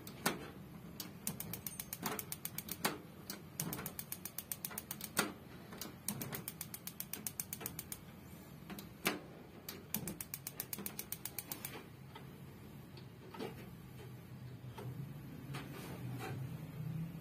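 Rinnai two-burner gas stove's front control clicking in quick runs of sharp mechanical ticks as the left burner's knob and lever are worked by hand, with a few single clicks near the end, over a low steady hum.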